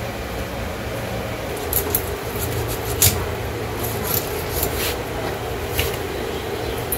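A bonti blade cutting through a pangas catfish: a handful of short, sharp crunching clicks spread over a few seconds as the fish is pushed through the blade, over a steady low background hum.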